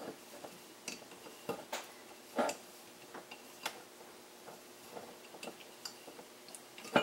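Irregular small metallic clicks and taps of a winged corkscrew being twisted and worked on the neck of a glass wine bottle, with louder knocks about two and a half seconds in and at the end.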